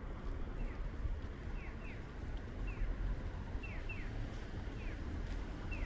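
Outdoor ambience with a steady low rumble underneath. Over it a bird repeats short, falling chirps, often two in quick succession, about once a second.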